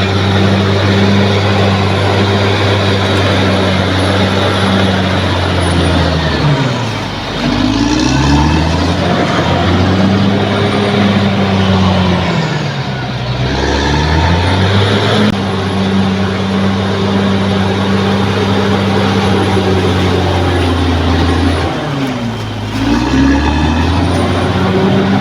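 Bulldozer diesel engine running steadily at high revs; its pitch sags and climbs back three times.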